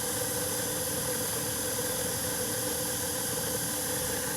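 Small benchtop mini drill press motor running steadily, a continuous hum with a high whine, while it turns a BPI single-pin roll crimper.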